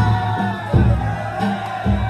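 Danjiri festival music: drum beats recurring about every three-quarters of a second under a high, sustained melodic line.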